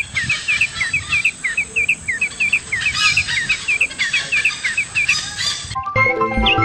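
A bird chirping over and over, short curved notes about three or four a second. Near the end it cuts off and background music starts, with more chirps over it.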